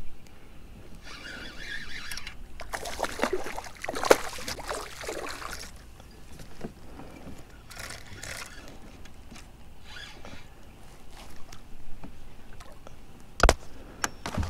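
Fishing tackle handled aboard a kayak: a fishing reel cranked in short rasping spells, with rubbing and scraping of gear. A sharp knock near the end is the loudest sound, followed by a smaller one.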